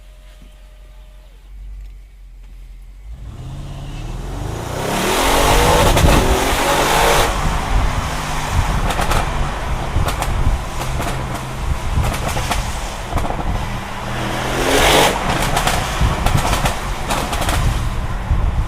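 Audi RS6 Performance's twin-turbo 4.0 V8 pulling away after a quiet few seconds, its pitch rising as it accelerates hard. Exhaust crackles and pops follow as the throttle comes on and off, with another hard burst of throttle later on.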